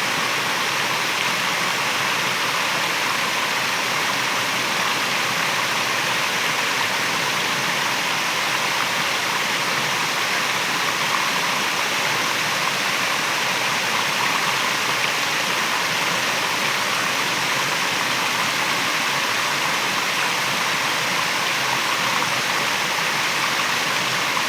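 Waterfall: water falling and rushing in an even, unbroken stream of sound.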